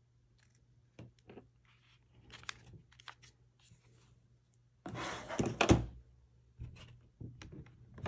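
Hands handling the parts of an opened laptop on a table: a few light clicks and knocks, then a louder scraping clatter about five seconds in.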